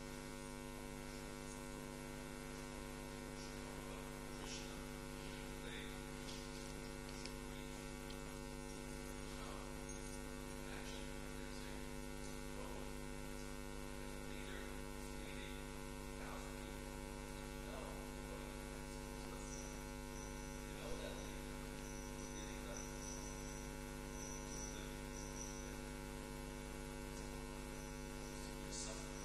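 Steady electrical mains hum with a stack of overtones, with a few faint rustles and a single small knock about three-quarters of the way through.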